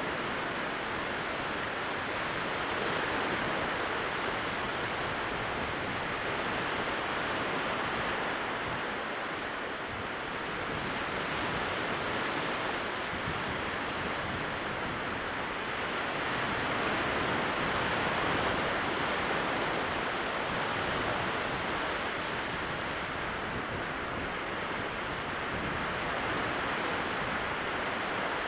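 Calm sea at very low tide: small waves breaking gently along the shoreline, a steady wash of surf that swells and eases every few seconds.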